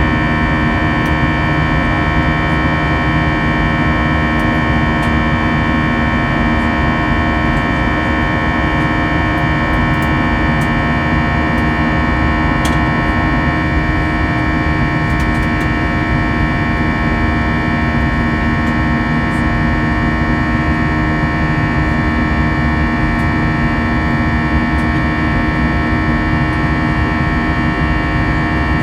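Airbus A320-200 jet engines and airflow heard from inside the passenger cabin: a steady drone with several held tones over a low rumble, unchanging in level.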